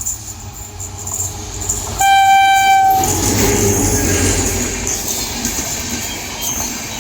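Express train's locomotive horn sounding one blast, about a second long, some two seconds in. The train then runs past at speed without stopping, with the rush and clatter of wheels and coaches going by.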